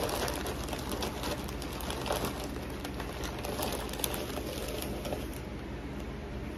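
Crinkly rustling of caramel-coated popcorn and its packaging being picked through by hand, in a quick run of small crackles that thins out after about four seconds. A steady low hum runs underneath.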